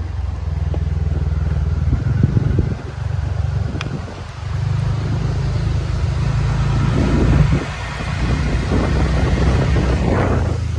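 A motor vehicle's engine running steadily with a low hum, easing off briefly twice, under a rushing haze of road or wind noise.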